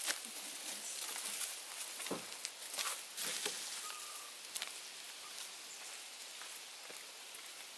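Quiet outdoor ambience with a steady high hiss, broken by a few light rustles and clicks from handling near the microphone about two to three and a half seconds in, and one brief faint chirp about four seconds in.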